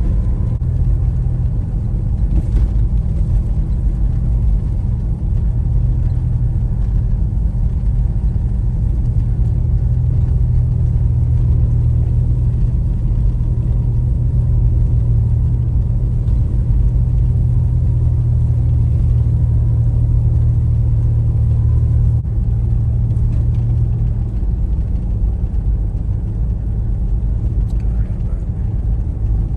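A motor vehicle driving, with a steady low engine and road rumble. The engine note shifts twice, about three quarters of the way through.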